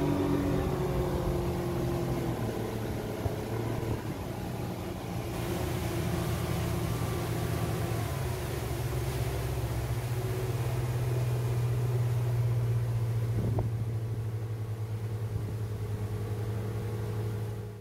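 Speedboat engine running steadily under way: a deep, even drone with the rush of water along the hull, heard from inside the cabin.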